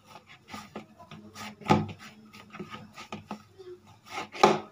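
Hands kneading and pressing a soft risen dough in a plastic bowl to knock the air out of it: irregular dull thumps and knocks as the dough is pushed down and the bowl shifts on the counter, with two louder knocks, one near the middle and one near the end.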